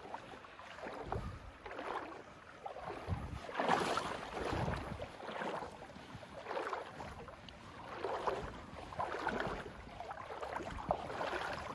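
Legs wading through a stream, the water sloshing and swishing with each stride, about once a second.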